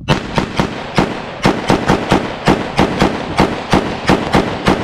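Rapid semi-automatic fire from a DB15 AR-15-style rifle during a magazine dump: a quick string of single shots, about three to four a second, starting at once and not stopping.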